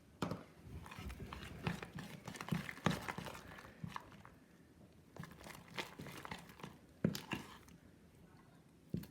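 Spoon stirring a sticky slime mix of glue, shaving cream and detergent in a bowl: irregular wet squelches and clicks that come in spurts with short pauses.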